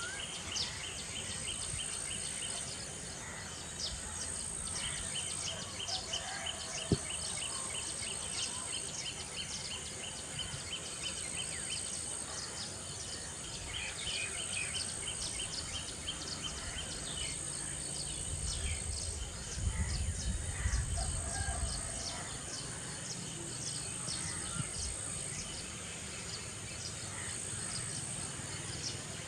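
Poultry and peafowl calling with many short, high chirps over a steady high buzz that swells about every two to three seconds. There is a single sharp click about seven seconds in, and a low rumble a little past two-thirds of the way through.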